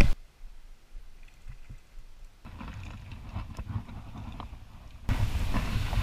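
Faint steady rushing of river water, with a few light ticks. About five seconds in it jumps louder, with a low rumble under the rush.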